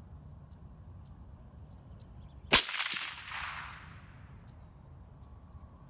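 A single rifle shot from an AR-15 firing steel-case Tula 7.62x39 ammunition, about two and a half seconds in, followed by a rolling echo that dies away over about two seconds.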